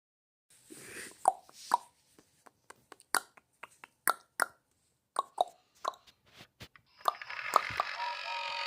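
A string of sharp clicks and short pitched pops, irregularly spaced. About seven seconds in, a steady whirring hum with a held tone takes over.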